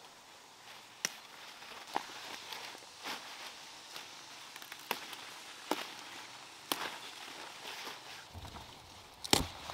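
Leafy greens picked by hand: sharp snaps of stems breaking off about once a second over a light rustle of leaves, with a couple of louder snaps near the end.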